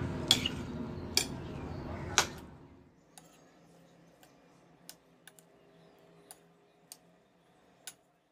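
Spoon stirring a chopped chickpea and vegetable salad in a bowl, with three sharp clinks of the spoon against the bowl. About three seconds in the stirring turns much quieter, leaving only faint scattered ticks.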